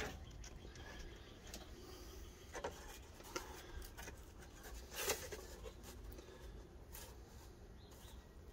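Faint handling of a cardboard template pressed down onto the threaded studs of a metal welder case: soft rubbing with scattered light taps and clicks, the sharpest about five seconds in.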